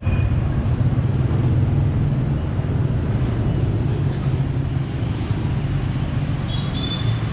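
Street traffic with motorbike engines running close by, an even low rumble. A few faint, short high tones come near the end.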